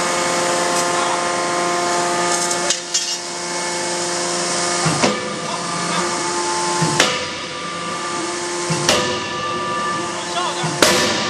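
Anyang 50 kJ CNC closed-die forging hammer running with a steady hum and striking red-hot steel bar stock in its die, forging steel grinding balls. There are four sharp blows roughly two seconds apart, starting about five seconds in, with a clatter of metal a few seconds earlier.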